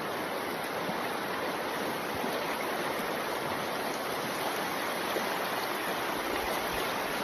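River water rushing steadily, a constant even roar of flowing current.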